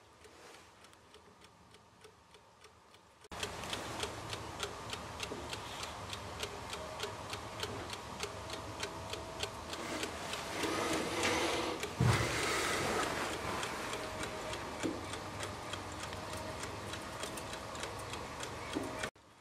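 A wall-mounted clockwork timer switch ticking steadily and quickly, several ticks a second. It is faint for the first three seconds, then loud and close until it cuts off suddenly near the end. There is a single low thump about twelve seconds in.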